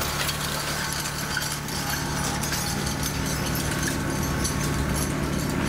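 Kubota B2261 compact tractor's 26 hp three-cylinder diesel running steadily as it pulls a chain harrow and sand-filled roller across grass, with the harrow's chains rattling and scraping over the turf.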